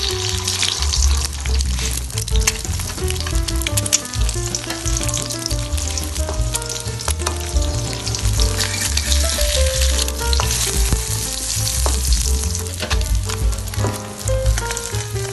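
An egg sizzling in hot oil in a wok, with a metal spatula clicking and scraping against the wok as the egg is stirred and broken up. Background music with a melody and a steady bass beat plays underneath.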